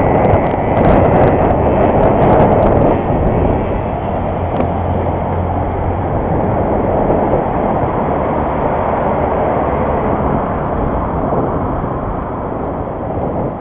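Steady wind rush and road rumble on the microphone of a camera riding on a moving bicycle, with a few light rattles in the first few seconds.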